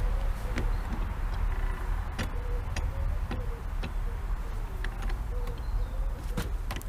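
Scattered light clicks and taps of metal parts as the bench rest's adjusters are tightened by hand, with faint squeaks between them, over a steady low rumble.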